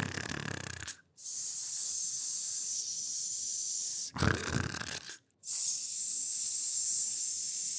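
Cartoon snoring: twice a rough intake of breath, each followed by a long, high hissing breath out.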